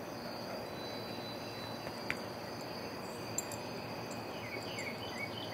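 Steady evening insect chorus of crickets, a continuous high chirring. Two faint clicks about two and three and a half seconds in, and a few short chirps near the end.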